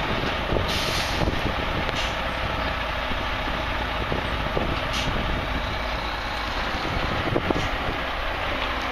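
Heavy roll-off dumpster truck's diesel engine running as the loaded truck pulls slowly away, with a brief hiss about a second in.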